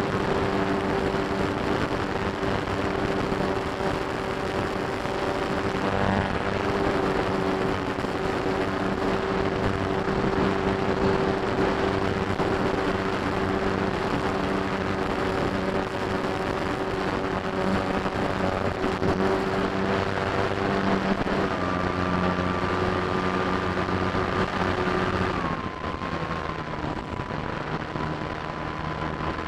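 Radio-controlled T-28 model airplane's motor running steadily in flight, with airflow rushing over the wing. About three-quarters of the way through, the pitch shifts, a thin higher whine comes in, and the sound then drops slightly as the plane is throttled back and set down.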